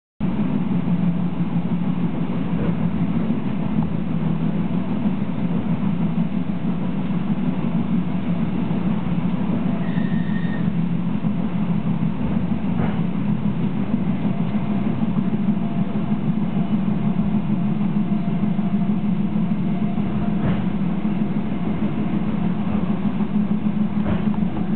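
Inside a moving DR1A diesel multiple unit: the train runs with a steady low drone and occasional knocks. A brief high tone sounds about ten seconds in.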